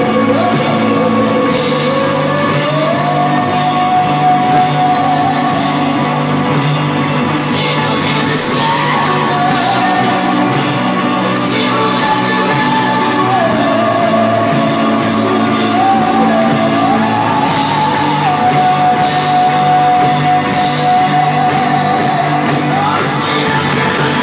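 Live band playing electric guitar, Nord keyboard and drums, under long held sung notes that slide up from one pitch to the next.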